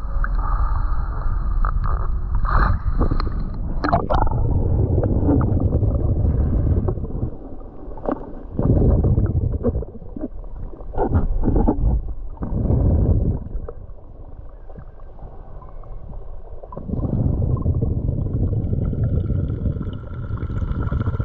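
Muffled, low rumbling and gurgling of water heard from a camera held underwater while swimming with a snorkel, swelling and easing several times, with a few sharp knocks in the first few seconds.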